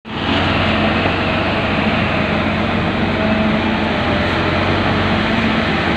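Diesel engine of a Kaiser spider excavator running steadily at close range, a loud, even engine drone.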